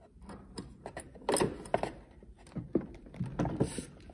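Irregular metal clicks, knocks and scrapes of a spark plug wrench working the spark plug loose on a 50cc scooter engine, with a couple of sharper clanks about a second and a half in and near the end.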